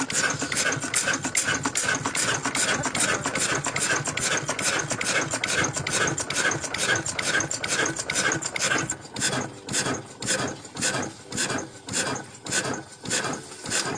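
Old single-cylinder horizontal diesel engine with heavy spoked flywheels running, its firing strokes beating quickly and evenly. About nine seconds in, the beats slow and spread out to roughly two a second.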